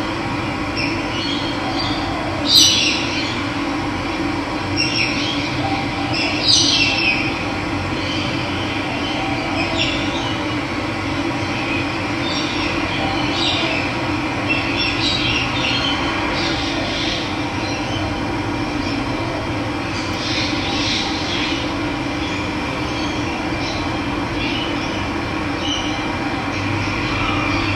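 Steady rush of running water with birds chirping now and then over it, the loudest chirp about two and a half seconds in.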